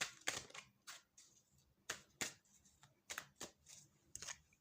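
Tarot cards being shuffled and handled: about a dozen sharp, irregular card clicks and flicks.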